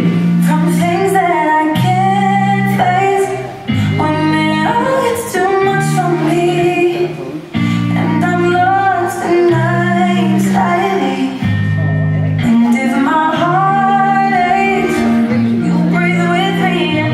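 Pop song for a line dance, with a woman singing over steady held chords.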